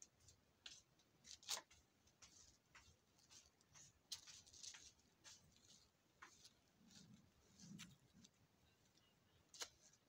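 Faint rustling of clothing being handled and unfolded, with scattered small clicks, the sharpest about a second and a half in and near the end.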